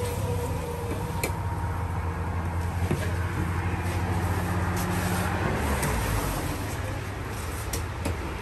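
Steady low rumble of an engine running close by, with a few sharp knocks of a cleaver chopping fish on a wooden stump.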